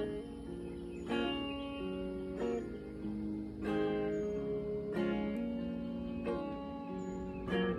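Semi-hollow electric guitar strummed in a slow, even rhythm: a chord struck roughly every second and a quarter, each left ringing until the next.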